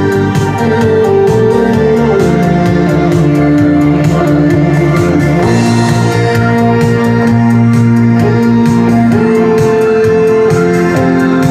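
Music: long held chords over a steady beat.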